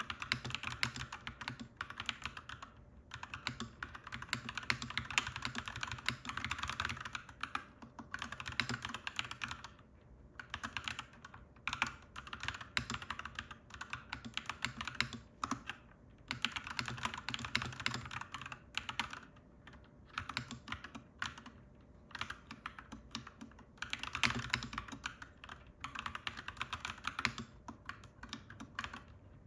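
Fast typing on a clacky mechanical keyboard: runs of rapid keystrokes broken by short pauses every few seconds.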